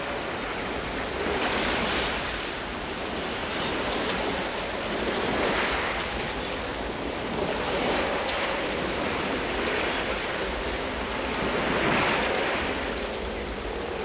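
Ocean surf breaking on a beach, waves surging in and washing back, swelling louder every three to four seconds.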